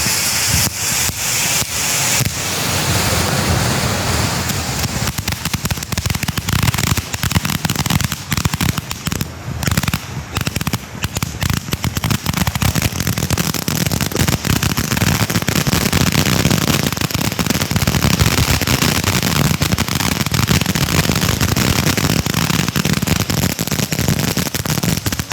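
Consumer fireworks going off: a dense, continuous run of rapid pops and crackles, with a hiss in the first couple of seconds.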